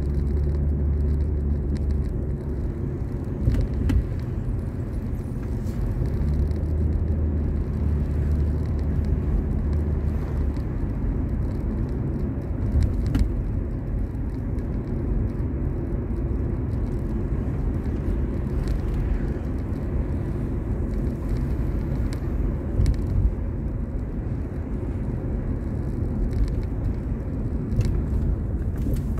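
Road and engine noise inside a moving car's cabin: a steady low rumble with a few brief knocks.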